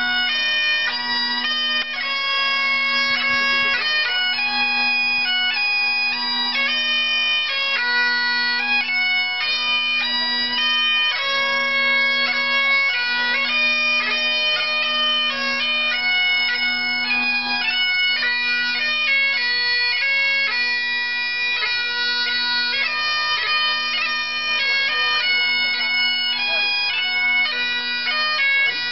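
Scottish Great Highland bagpipe played solo: a steady drone under a chanter melody of quickly changing notes.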